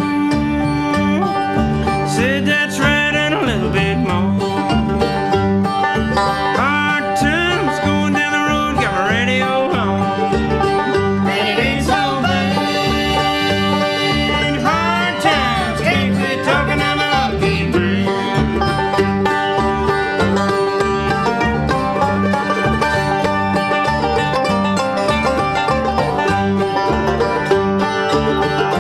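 Background country music: an instrumental stretch of a song with a steady beat, plucked strings and sliding lead notes, no singing.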